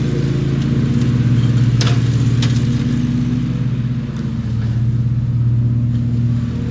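Lawn mower engine running steadily, dipping slightly in level about four seconds in.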